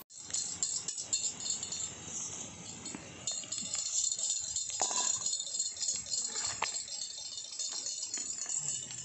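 Battered egg pieces deep-frying in hot oil in a clay pot: a steady crackling sizzle. A couple of short light knocks come from the steel slotted spoon as fried pieces are lifted out.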